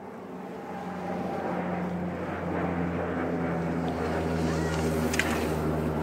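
A steady engine drone that builds over the first second or so and then holds, with a low hum and a few steady tones.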